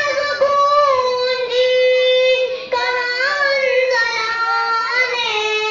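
A boy reciting a naat in a sung voice through a microphone and loudspeaker, with no instruments. He holds long, ornamented notes, pausing briefly for breath about halfway through.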